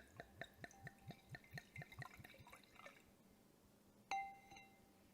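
Wine glugging out of a bottle into a glass in quick regular pulses, about four a second, for about three seconds. About four seconds in comes a single ringing clink of glass.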